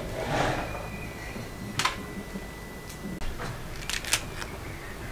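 Pomegranate arils being worked loose by hand and dropping into an enamel pot: a few sharp clicks and taps over a soft rustle. One click comes about two seconds in and two close together near the end.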